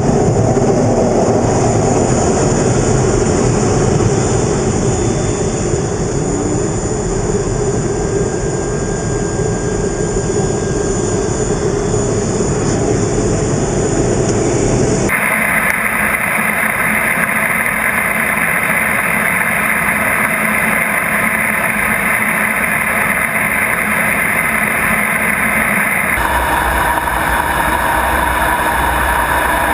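Jet aircraft engines running loud and steady, with no let-up. The sound changes abruptly twice, about halfway through and again near the end, and after the first change a high whine sits over the noise.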